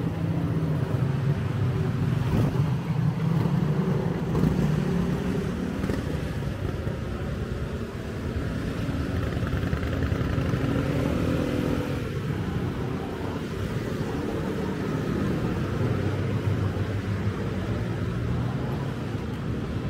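Street traffic: cars and motorcycles running past, with engine hum that swells in the first few seconds and again more faintly near the end over a steady city-street background.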